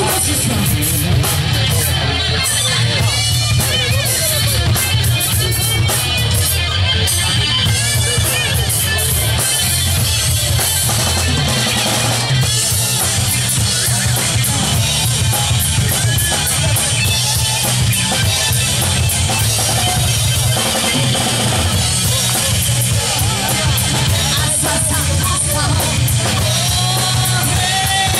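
Live rock band playing loud and steady: electric guitars, bass and a drum kit, with a singer's voice over them.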